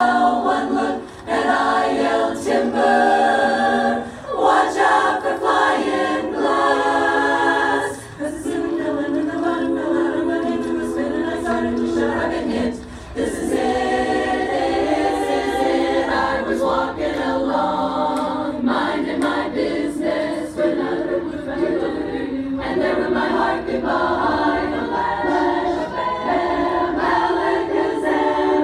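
A choir singing a cappella, many voices together in harmony, with short breaks between phrases.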